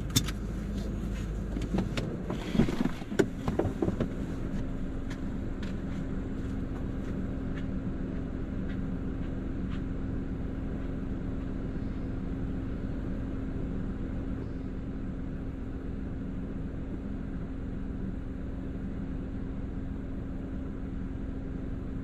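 Car door handling as the driver gets out: a few sharp clunks about two to four seconds in, then a steady low hum heard from inside the parked car.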